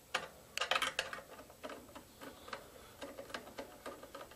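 Irregular light clicks and scrapes of hands fastening thermostat wires onto a furnace control board's screw terminals: a quick cluster of clicks just before a second in, then scattered single clicks.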